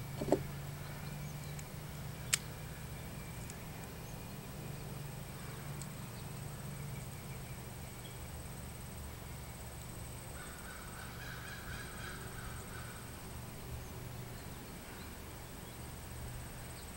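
Quiet outdoor yard ambience: a steady low hum with a couple of faint clicks, and faint bird calls for a few seconds about ten seconds in.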